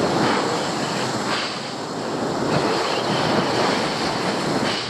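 Sea surf washing and surging against the rocks, swelling and easing, with wind buffeting the microphone.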